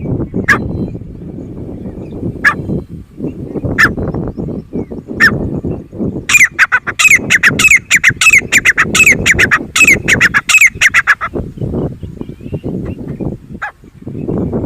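Grey francolin calling: a few single sharp notes spaced a second or more apart, then, from about six seconds in, a fast run of repeated shrill calls, several a second, lasting about five seconds. A low rumbling noise runs underneath throughout.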